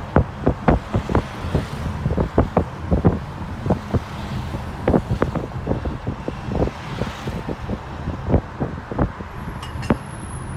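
Riding in a car through city traffic: a steady low road rumble with frequent short, irregular buffets of wind on the microphone. A faint high whistle comes in near the end.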